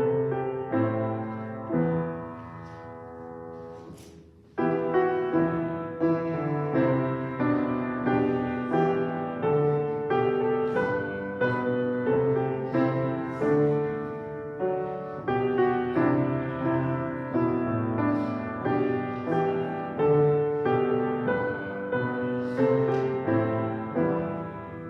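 Piano playing a hymn in slow, full chords. It dies away about two seconds in, and after a short break with a single click it starts again strongly.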